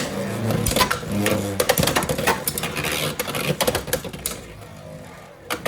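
Beyblade X spinning tops battling in a plastic stadium: a steady spinning whir under rapid rattling clicks and hard knocks as the tops collide and grind around the stadium's toothed Xtreme Line rail.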